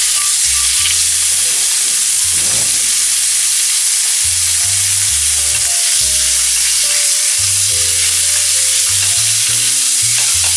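Small cubes of meat fillet sizzling hard in hot oil in a frying pan over high heat while being stirred, the meat searing so it seals and stays juicy inside.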